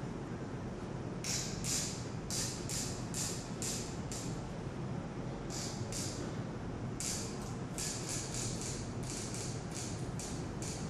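Dancers' feet and bodies scuffing and sliding on the floor: a string of short, hissy brushes in irregular clusters, with a pause a little before the middle, over a steady low room hum.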